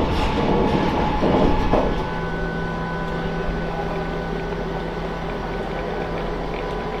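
Train running on the rails; the rolling noise ends about two seconds in, leaving a steady hum with a few fixed tones.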